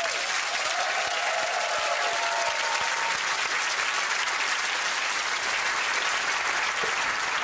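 Studio audience applauding steadily, with a few brief pitched sounds over it in the first seconds.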